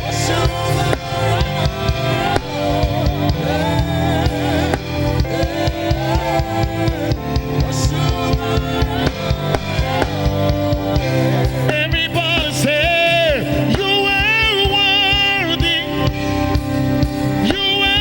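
Live gospel praise music: a voice singing with vibrato and melismatic runs over a band with a drum kit keeping a steady beat.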